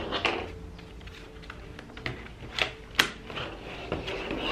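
Sharp plastic clicks and knocks, about half a dozen spread out, as a laptop and its battery are handled and the laptop is lifted and turned over on a table.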